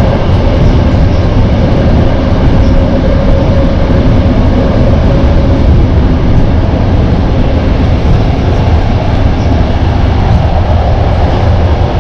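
Steady loud rumble of a moving vehicle heard from inside, with a faint steady whine that shifts a little higher near the end.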